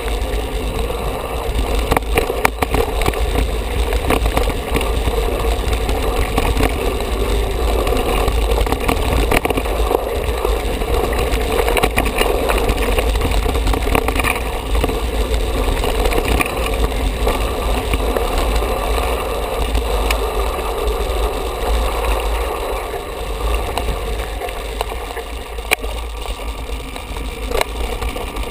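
Mountain bike riding down a rough dirt and stone trail, heard from a handlebar-mounted camera: a steady low rumble of wind and trail vibration with frequent small knocks and rattles as the knobby tyres roll over stones and bumps.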